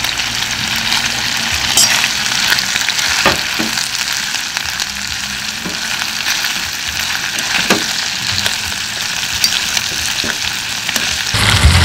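Meat sizzling on a hot grill: a steady frying hiss with scattered pops of spitting fat. About half a second before the end, a loud low hum comes in.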